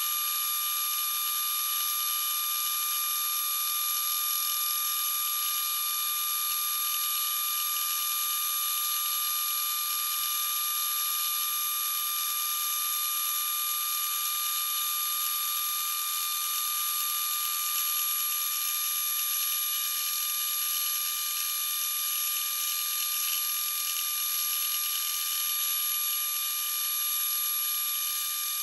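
Round column milling machine running a homemade fly cutter across the cast iron port flanges of a Cummins 5.9 exhaust manifold, milling them flat. A steady high whine with cutting noise.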